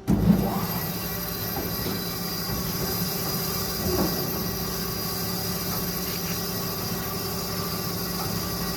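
Amada HA400W band saw starting up with a sudden jump in level, then running steadily with a constant hum and a high whine. Its new blade is being broken in on a slow-feed trim cut through 4340 steel round bar.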